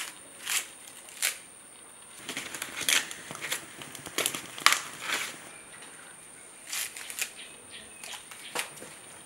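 Maize husks crackling and crinkling: irregular dry snaps and rustles, a few each second at their busiest, from the husks being stripped off fresh cobs by hand.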